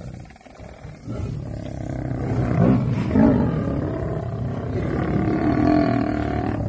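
Deep, drawn-out roaring calls from large wild animals. They start about a second in, build to their loudest in the middle, and a further long call comes near the end.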